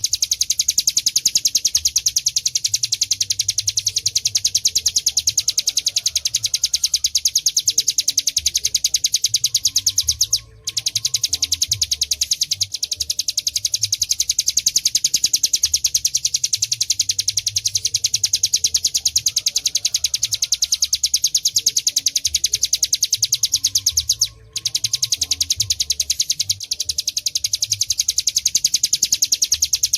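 Ciblek gunung (hill prinia) singing a continuous, very fast trill of high repeated notes, the unbroken 'ngebren' song. It pauses briefly twice.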